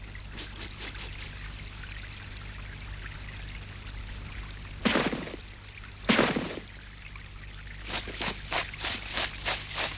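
Water of melting snow trickling and running steadily. Two loud, sudden sounds come about five and six seconds in, and from about eight seconds a run of short sharp sounds repeats about three times a second.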